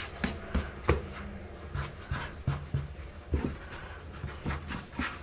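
Hands patting and pressing wet baguette dough flat on a wooden cutting board to punch out the big bubbles: an irregular run of soft pats and thumps, about three a second.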